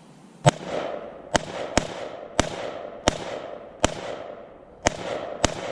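Eight rapid gunshots from a scoped semi-automatic rifle, fired at an uneven pace of roughly one every half second to second, each crack trailing off in a rolling echo.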